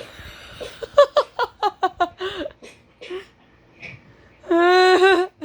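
People laughing: a run of quick giggles, then a long, high-pitched laughing squeal near the end.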